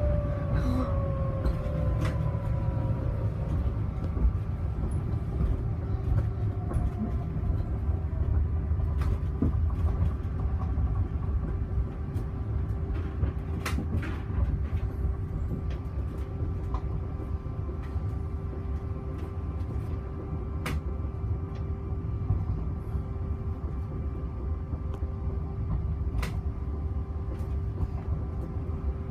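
Cabin of a Heathrow ULTra personal rapid transit pod riding along its guideway: a steady low rumble with a constant electric hum. A whine falls in pitch over the first few seconds, and there are occasional light clicks and knocks.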